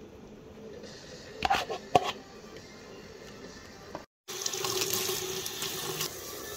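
Pot of soup boiling on a stove, with two sharp knocks against the metal pot about one and a half and two seconds in. After a brief cut a louder, steady bubbling hiss of boiling water follows.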